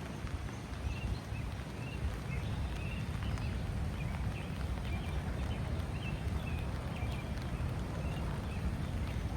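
A bird chirping in a quick repeated series of short high notes, over a steady low rumble.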